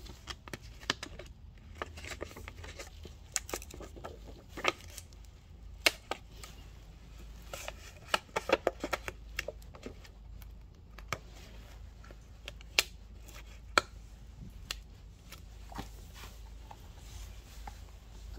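Irregular sharp clicks and light taps of hand tools working at the cracked screen of an iPad Pro 11, with a quick run of clicks about halfway through, over a low steady hum.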